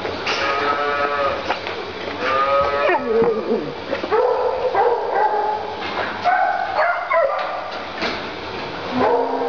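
Farm animals bleating: about seven wavering calls one after another, one sliding down in pitch about three seconds in, the last starting near the end.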